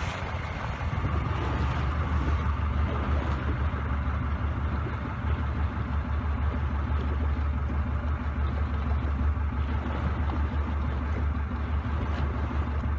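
A boat's engine running steadily with a low hum, over the wash of water and wind. It gets a little louder about a second in.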